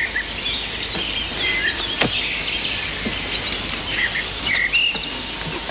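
Several birds chirping and trilling over a steady outdoor background hiss, with a single light knock about two seconds in.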